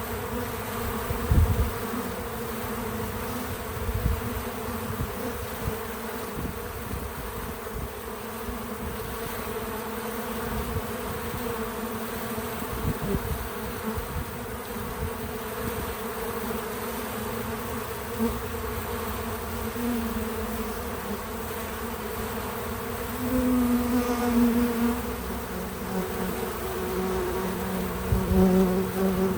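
Bees buzzing around a feeder in a steady, many-voiced hum. Single bees pass close and loud twice in the last third, and a few low bumps sound in the first few seconds.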